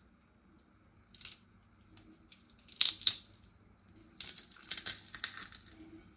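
Papery garlic skin crackling and tearing as a clove is worked with a small knife: a brief crackle, two sharper crackles about three seconds in, then a longer run of rapid crackling near the end.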